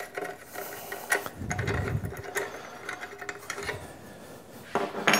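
Hands fitting an aluminum tool rest to a bench grinder and turning its plastic knob on the mounting bolt: scattered small clicks and taps, a dull knock about a second and a half in, and a sharper click near the end.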